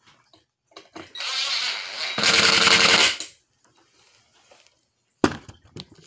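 Cordless drill driving a screw into a ceiling fan mounting bracket: the motor whines for about a second, then runs louder with a rapid, even rattle for about another second. A single sharp knock follows near the end, with a few light clicks after it.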